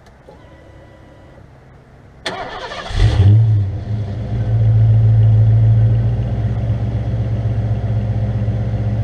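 1988 Ford Mustang GT's 5.0-litre V8 cranked over by the starter, catching about three seconds in with a brief flare of revs, then settling into a steady idle through its Dynomax Ultra Flo cat-back exhaust.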